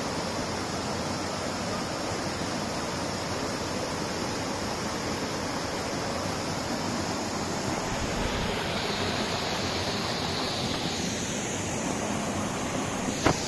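Waterfall: a steady rush of falling water, with a couple of short clicks near the end.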